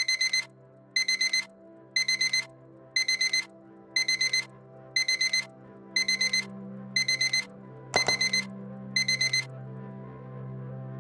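Smartphone alarm beeping: a group of four quick high beeps once a second, ten times over, until it is silenced about nine and a half seconds in. There is a single knock near the end of the beeping, and a low steady ambient music drone underneath.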